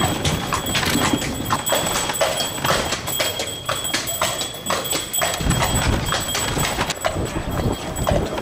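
A carriage horse's hooves clip-clopping steadily on a paved street as it pulls the carriage.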